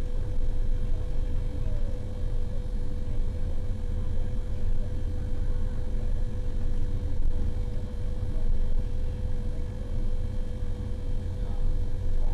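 Motor grader's diesel engine running steadily under heavy low rumble, with a constant whine.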